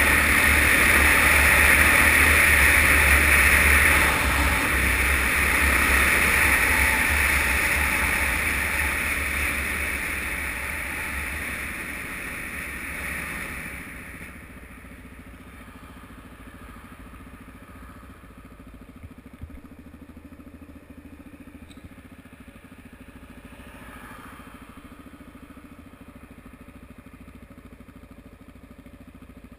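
Suzuki DR-Z single-cylinder motorcycle heard from a helmet camera: wind rush and engine at road speed, fading over about ten seconds as the bike slows, then the engine idling steadily while stopped for the second half.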